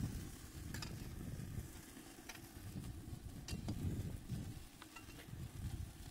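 Vegetables sizzling on the hot grate of a charcoal kamado grill over a low rumble, with a few light clicks of metal tongs moving them on the grate.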